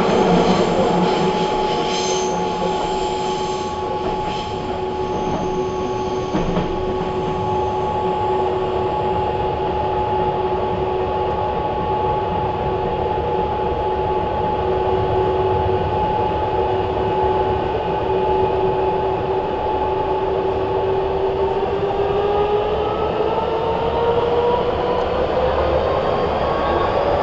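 Nagoya Municipal Subway N3000-series train running, heard from inside the car: a steady rumble of wheels on rails under a held traction-motor whine. About three-quarters of the way through, the whine starts rising in pitch as the train picks up speed.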